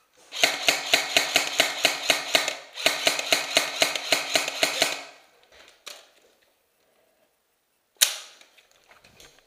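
G&P M4A1 airsoft electric rifle firing two long full-auto bursts of about two seconds each, a rapid even clatter of clicks over the gearbox motor's hum. A single sharp crack follows near the end.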